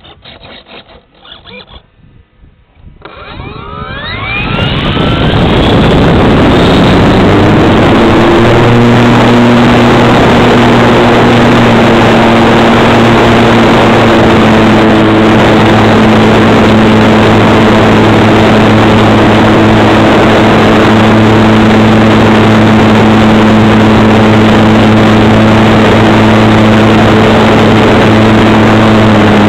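Electric motor and propeller of a Parkzone SE5a RC model plane, heard from a camera on the airframe: the motor spins up with a rising whine about three seconds in, then runs loud and steady at flying throttle, with wind rushing over the microphone as the plane takes off and flies.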